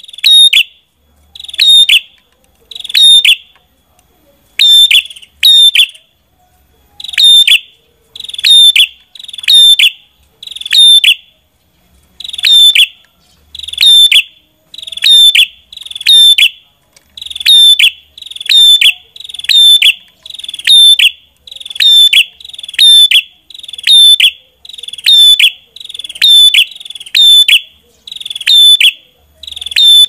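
Ashy tailorbird calling: a loud, sharp, high note repeated about once a second, now and then doubled.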